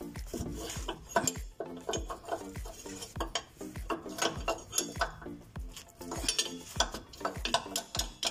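Irregular metallic clinks of a hand tool working the bolt of a rear shock absorber's lower mount. Background music with a thumping beat plays under them.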